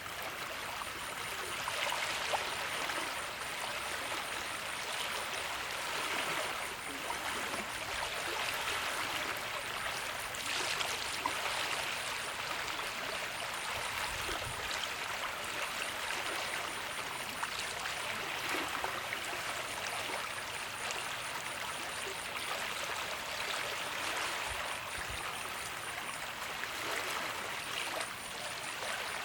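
Water flowing in a stream, a steady rushing and splashing.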